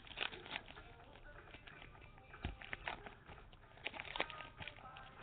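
Foil trading-card pack wrapper crinkling and crackling in irregular bursts as it is handled. There is a soft bump about two and a half seconds in.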